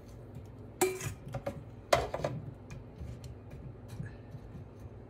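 Metal tongs clinking against a stainless steel bowl and an air fryer basket as potato and carrot chunks are tipped and pushed in. There are scattered clinks and knocks, with sharper ones about one and two seconds in.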